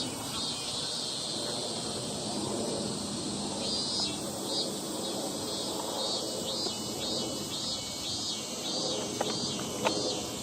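An insect chirping in short, even pulses, sparse at first, then about two a second, over a steady background hiss. Two sharp clicks near the end.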